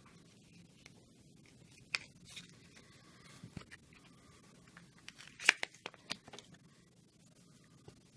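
Handling noises as the next silver coin is taken out: soft rustling with scattered sharp clicks, the loudest about five and a half seconds in.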